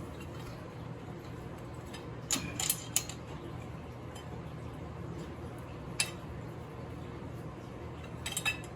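Metal hand tools clinking against metal as a bolt is worked loose: a quick cluster of clinks about two and a half seconds in, a single sharp clink around six seconds and another pair near the end, over a low steady hum.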